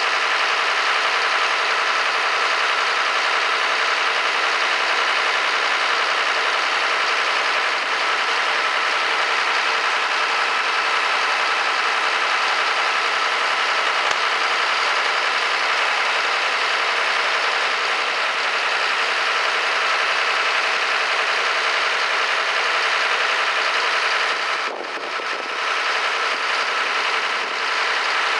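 Engine running steadily at a constant speed, dipping briefly about 25 seconds in.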